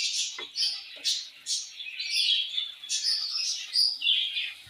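Small birds chirping over and over in quick, high, short notes, with a couple of soft knocks of a wooden spatula against the pan in the first second.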